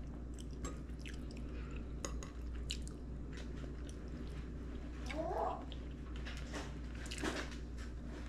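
Quiet eating at a table: chewing with scattered light clicks of utensils against dishes, over a steady low hum.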